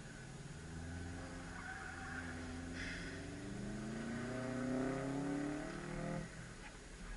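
2012 Volkswagen GTI's turbocharged 2.0-litre four-cylinder, heard from inside the cabin with the car standing still: it idles, then its revs rise steadily for a couple of seconds and drop back abruptly about six seconds in.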